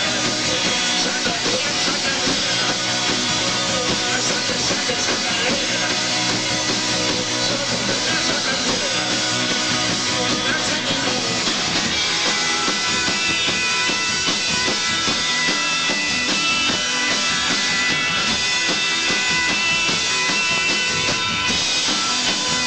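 Live rock band playing loud, with electric guitar in a dense full mix. About halfway through, the low end drops away and steady held high notes carry on.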